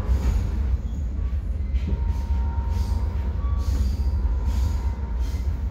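Metra commuter train heard from inside a moving passenger car: a steady low rumble of the car rolling on the rails. About two seconds in, a thin steady whine joins for a few seconds.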